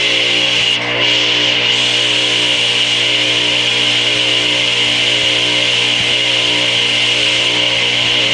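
Craftsman 8-inch direct-drive table saw motor (single-phase, 3450 RPM) running steadily at speed: a constant hum with a high whine over it, dipping briefly about a second in.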